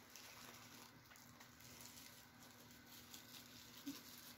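Near silence: faint rustling and a few soft clicks of small packaging being handled over a low room hum.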